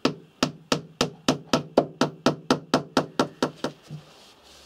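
Hammer tapping pins into wooden trim on a timber frame: a quick, even run of about sixteen strikes, about four a second, stopping about four seconds in.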